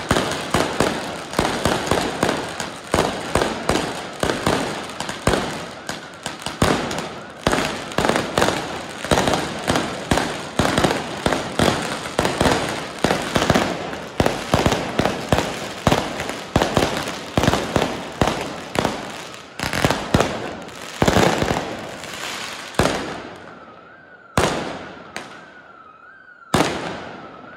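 Rapid barrage of firework bangs, several a second, thinning out near the end to a few separate bangs with short quiet gaps between them.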